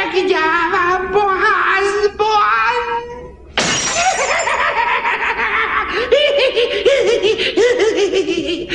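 A high, wavering cackling voice, then about three and a half seconds in a glass mirror shatters with a sudden crash, followed by a long rattling spill of breaking glass under more cackling laughter.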